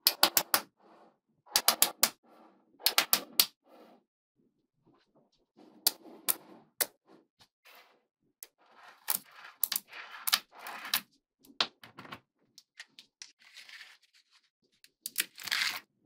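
Small magnetic balls clicking sharply as they snap together, in quick runs of three or four clicks, then softer rattling and scraping as rows of balls are pushed and slid about on a hard tabletop, with a louder scraping rattle near the end.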